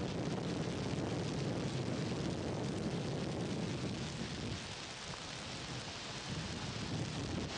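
Floodwater of the swollen Neretva River rushing in a torrent: a steady, unbroken noise of churning water that eases slightly after about four and a half seconds.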